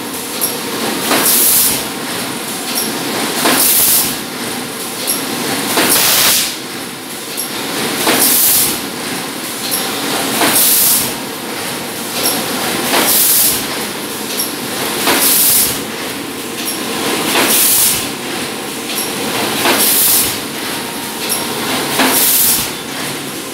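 PET bottle blow moulding machine running in automatic production, with a loud hiss of blowing air venting about every two and a half seconds, once each moulding cycle, over steady machine noise.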